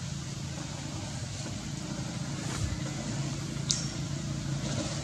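A motor running steadily with a low, even hum, and one sharp click a little before the end.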